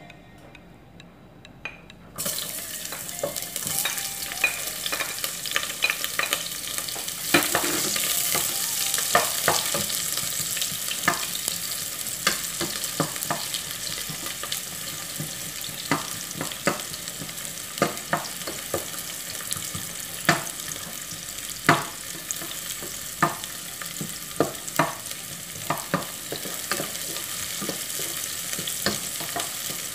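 Sliced onion and garlic dropped into hot oil in a pot begin to sizzle about two seconds in, a steady frying hiss. Frequent clicks and scrapes come from a spatula stirring against the pot.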